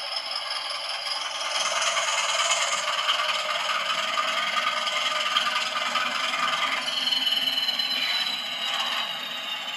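Bachmann OO gauge Class 20 model locomotive running under its DCC sound decoder: the recorded Class 20 diesel engine plays through the model's small speaker, thin with no bass, with whistling tones that slide in pitch and one falling near the end. The model's wheels rattle and scrape on the track underneath.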